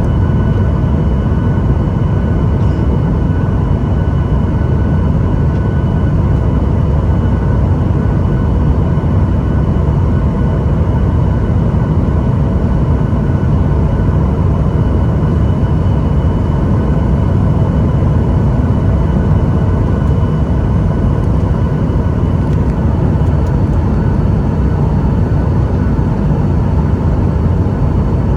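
Jet airliner cabin noise: a steady, loud rumble of engines and airflow, with a few thin steady whines over it.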